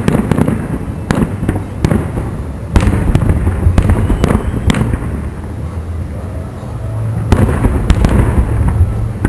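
Aerial firework shells bursting, many sharp bangs in quick clusters over a continuous low rumble, with a lull of a couple of seconds in the middle before the bangs pick up again.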